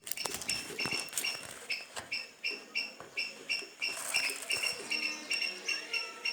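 An animal calling with short, evenly repeated high chirps, about three a second, with a few sharp clicks mixed in during the first couple of seconds.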